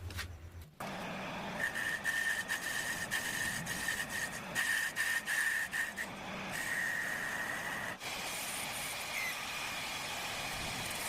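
Metal lathe machining, with a high steady whine that breaks off and comes back several times, then a steadier machine run after about eight seconds.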